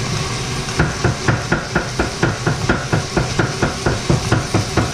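Flat spatula knocking and scraping against a nonstick frying pan while stir-frying sliced beef, a steady run of strokes about four a second, starting about a second in.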